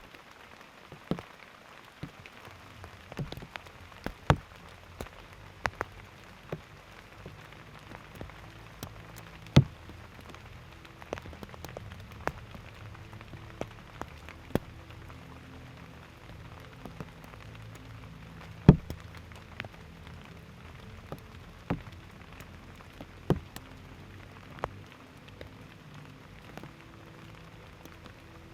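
Aerial firework shells bursting and crackling at irregular intervals, a sharp report every second or so, with two louder bangs about a third and two thirds of the way through, over a faint steady low drone.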